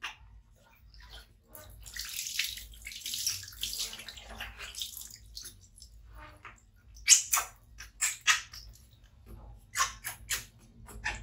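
Water being scooped and splashed by hand over a baby monkey held above a plastic basin: a few seconds of pouring, splashing water, then a string of short, sharp splashes and drips in the second half.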